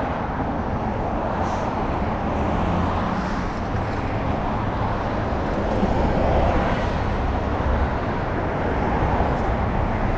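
Road traffic passing on a busy street, steady and continuous, with a city bus driving by in the near lane and the noise swelling a little past the middle.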